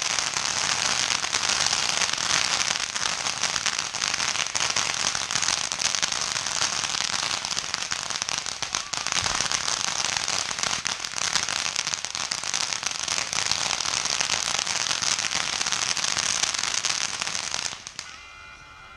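Ground fountain firework spraying sparks: a loud, steady hiss thick with tiny crackles, which stops abruptly about a second before the end.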